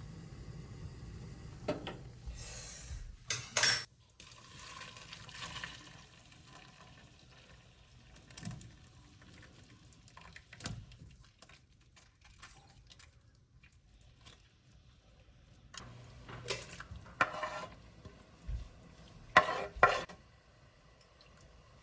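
Cookware and utensils clinking and clattering as food is stirred and handled, in scattered bursts with a quieter spell in the middle; the loudest knocks come a few seconds in and again near the end.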